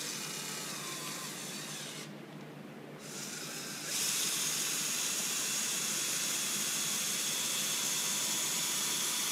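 A steady hiss, like air or a spray, that stops about two seconds in and starts again about a second later, louder from about four seconds in.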